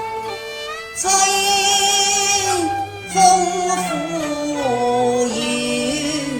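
Instrumental backing music for a Chinese opera-style song: a melody of long held notes with slides and vibrato over low sustained notes, the note changing every second or so.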